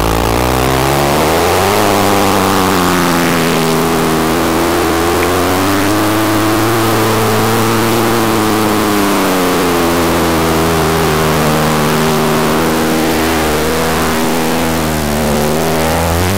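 Oscilloscope-demo audio signal: the X-Y waveform that draws the pictures on the scope, heard as a steady buzzing drone of many harmonics whose pitch glides slowly up and down a few times.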